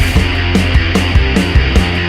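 Loud rock music with distorted guitar and a driving drum beat.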